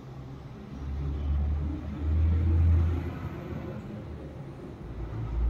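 A low rumble that swells about a second in, peaks around two to three seconds, and swells again near the end.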